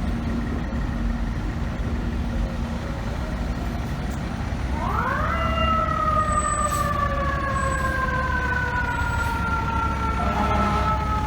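Low traffic and engine rumble, then about five seconds in a fire truck siren sweeps quickly up in pitch and slowly winds down, still sounding at the end.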